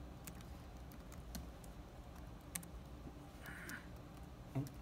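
Laptop keyboard being typed on: a handful of separate keystroke clicks spread out, not a fast run, over a faint room hum.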